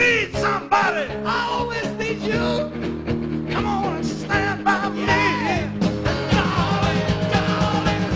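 Rock music with singing, a soundtrack song.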